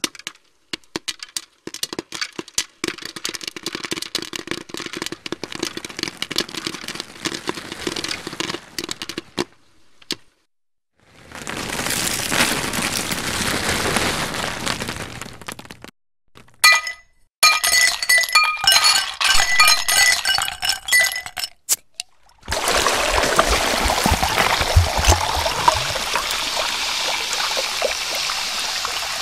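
Soda fizzing with crackling bubbles, then poured over ice in a glass, with ice cubes clinking and ringing against the glass about two-thirds of the way through and a steady pour near the end.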